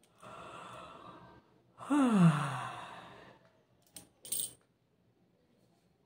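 A woman yawning: a long breathy in-breath through the wide-open mouth, then a loud voiced out-breath that slides down in pitch and fades. Two short breathy sounds follow about four seconds in.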